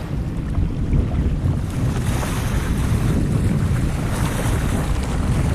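Steady wind buffeting the microphone, with the wash of choppy water around a sailing kayak underneath.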